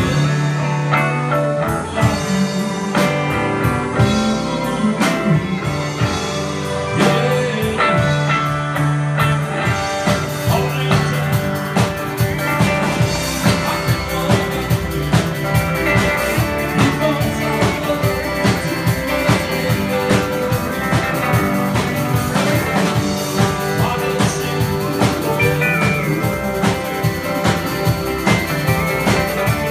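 Rock and roll band playing an instrumental passage with electric guitars, upright bass and drum kit keeping a steady beat.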